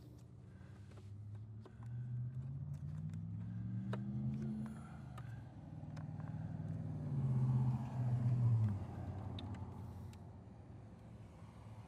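A motor vehicle's engine driving by, its pitch rising from about two seconds in, followed by a second, louder engine pass between about six and nine seconds in, with faint clicks of handling in between.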